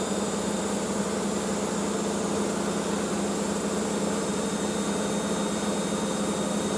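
Front-loading washing machine in a high-speed spin, climbing toward 1200 rpm: a steady motor whine over the hum of the drum.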